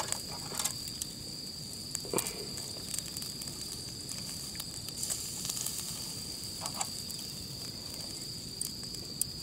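Thick cuts of pork and beef sizzling gently over low charcoal heat on a small tabletop wire-grate grill, with a few clicks of metal tongs on the grate as the meat is turned. A steady high insect trill runs underneath.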